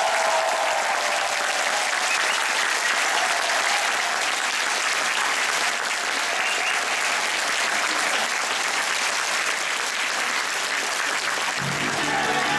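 Theatre audience applauding steadily. Near the end the band strikes up again with guitar-led music.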